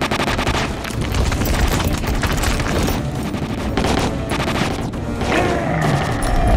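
Rapid volley of handgun fire from several shooters at once, the shots crowding together with orchestral film score underneath; the firing thins out about five seconds in.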